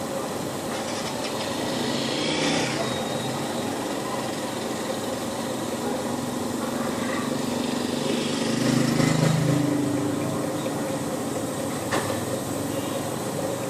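Village street ambience with a small engine running past; the engine grows louder and peaks about nine seconds in, and a single sharp click comes near the end.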